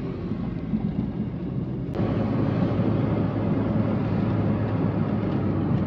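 Engine and road noise inside the cabin of a moving 2008 Honda City, a steady low rumble. A sharp click about two seconds in, after which the engine hum grows steadier and a little louder.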